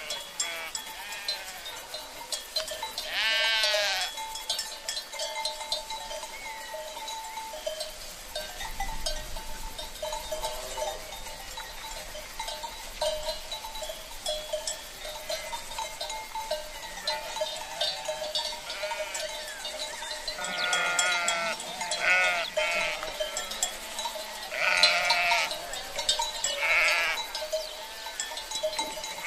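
Lambs and sheep bleating in a pen: a quavering bleat about three seconds in, then several more bleats close together in the last third.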